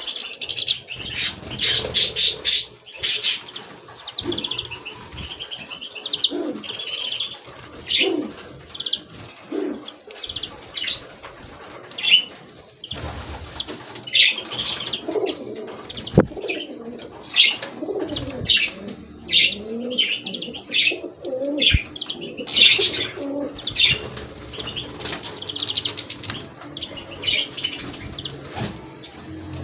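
A mix of small caged finches, goldfinches among them, chirping and twittering in quick, overlapping high calls throughout, with wings fluttering and pigeons cooing lower down.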